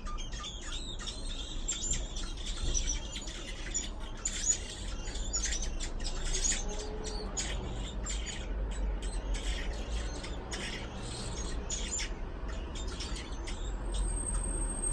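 Nestling birds giving rapid, high-pitched squawking calls in a dense chorus at the nest, thinning out after about twelve seconds, as they are fed by the parent.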